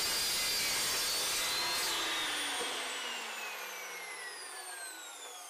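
Evolution 15-inch metal-cutting chop saw running at full speed through square steel tubing with a high whine. About two seconds in the trigger is released and the motor and blade wind down, the whine falling steadily in pitch as it fades.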